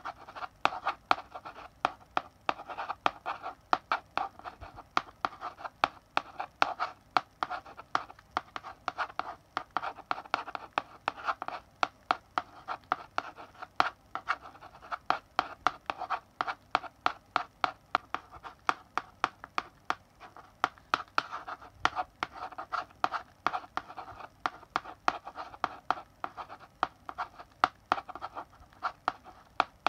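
Chalk writing on a blackboard: quick scratching strokes and sharp taps of the chalk tip, several a second, in an irregular rhythm.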